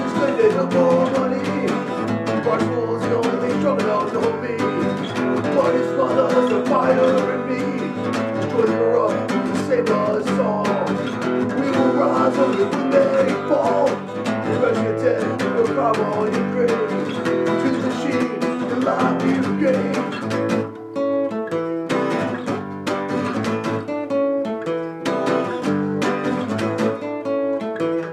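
Acoustic guitar played fast and hard in a live solo performance, dense strumming and picking. About twenty seconds in it thins out to sparser single notes.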